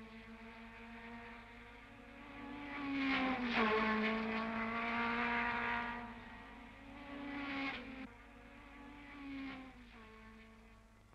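Racing car engines passing close by. The engine note climbs and then drops sharply as a car goes past about three and a half seconds in, the loudest moment. A second, shorter pass comes a few seconds later.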